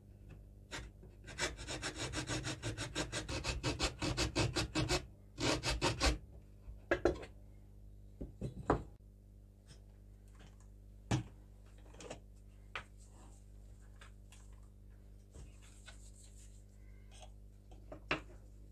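Junior hacksaw cutting through a wooden handle in quick, even strokes for about three and a half seconds, then a shorter burst of sawing. After that come scattered light knocks and clicks.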